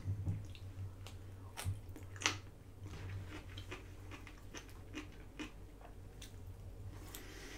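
Close-miked chewing of takeout Chinese food, with soft wet mouth clicks and smacks scattered through, over a faint low steady hum.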